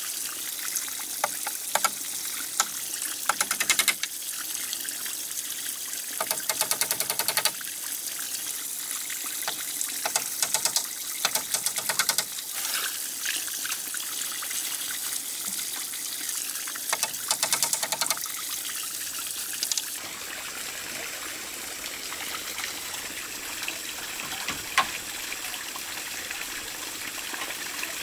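Muddy pond water splashing and trickling around a person wading and working in it, with frequent short knocks and clicks of bamboo slats being handled.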